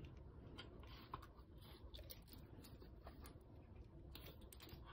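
Near silence: room tone with a few faint, light clicks scattered through it.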